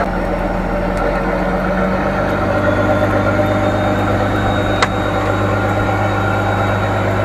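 Fishing trawler's engine running steadily, a low hum whose pitch shifts slightly about two seconds in, with a single sharp click just under five seconds in.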